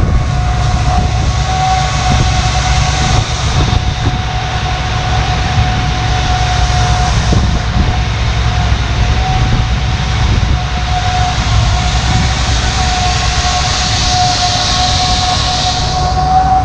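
Combine harvester running steadily: a deep engine drone with a steady high whine over it.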